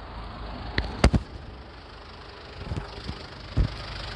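Ford Everest's 2.5-litre TDCi turbodiesel idling steadily with a low rumble, standard for this diesel. A few sharp knocks cut across it, the loudest pair about a second in and another near the end.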